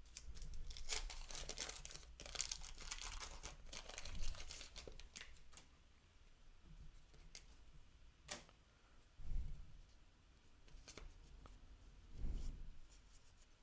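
A wax paper baseball card pack wrapper being torn open and crinkled for the first five seconds or so, followed by quieter handling of the cards with a few sharp clicks and soft bumps.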